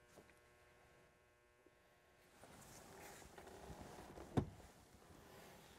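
Faint rustling and handling noise, with one sharp knock about four and a half seconds in.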